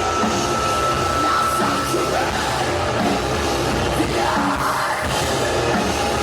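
A live hard rock band playing loudly and without a break, with a voice yelling over it.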